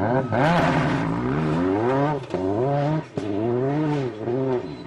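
Ford Focus WRC rally car's turbocharged four-cylinder engine accelerating hard, its pitch climbing and falling back at each gear change. The engine note dips briefly about two seconds in and again about three seconds in.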